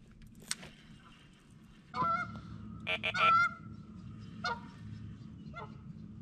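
Geese honking, several separate calls spread over a few seconds.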